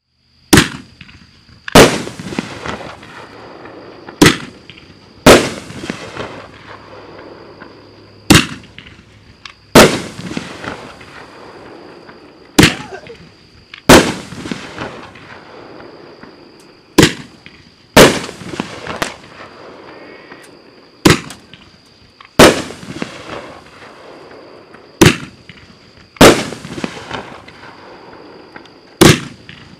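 Cutting Edge 'The Jaws' 500-gram 9-shot firework cake firing its shots one after another. The bangs come in pairs about a second apart, one pair roughly every four seconds: each shot's launch from its tube, then the shell bursting in the air.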